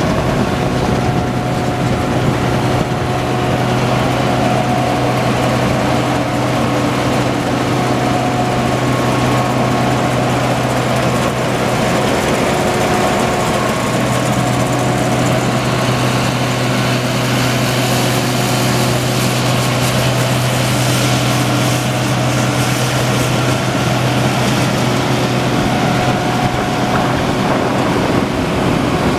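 Case IH 2188 combine's diesel engine running steadily, a constant low hum with steady whining tones over it. A rushing hiss grows louder for a few seconds past the middle.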